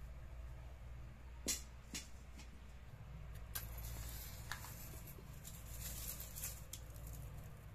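Two sharp metal clinks as an iron kadai is handled at a clay cooking stove, then a few seconds of scratching and rustling as a match is readied to light the kindling, over a steady low hum.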